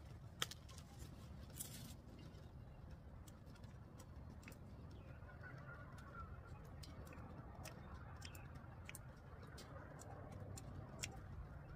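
Scissors snipping leafy vine stems: scattered faint clicks, the sharpest about half a second in, over a low steady outdoor rumble.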